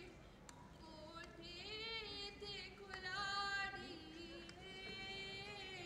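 Woman singing a slow Punjabi folk tappa unaccompanied, drawing out long, wavering notes in a few phrases.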